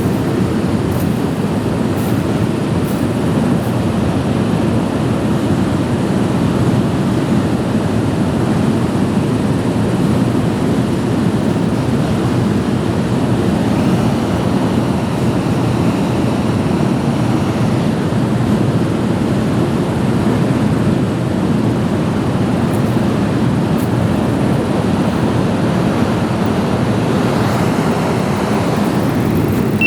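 Train passing, a steady low rumble that holds unbroken.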